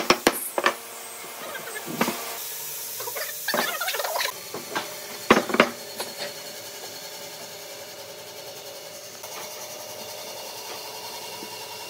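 Woodworking shop sounds: a few sharp knocks and a scraping rub of wood in the first half, then a fainter steady hum, like a power tool running lightly.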